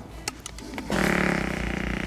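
Prank fart-noise machine playing a long, loud, buzzy fart sound that starts about a second in, after a few light clicks.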